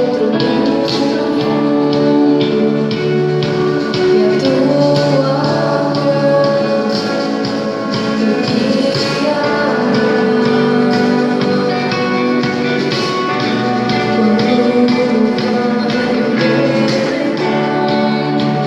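Christian worship band playing and singing, with sustained notes over a steady beat.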